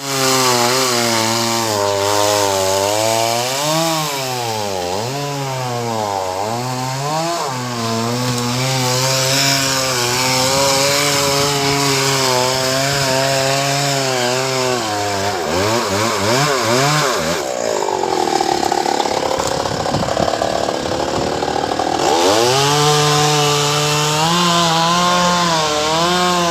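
Chainsaw running at high revs while cutting wood, its engine note dipping and recovering several times under load. For a few seconds past the middle the steady note gives way to rougher noise, then the saw comes back up to higher revs.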